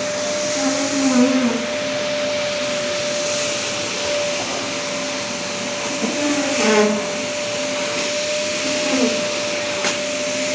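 Single-disc rotary floor scrubber shampooing carpet, its motor running steadily as a constant rushing noise with a steady hum.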